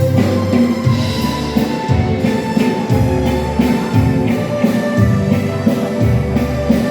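Dance-hall music with a steady beat and sustained instrumental notes.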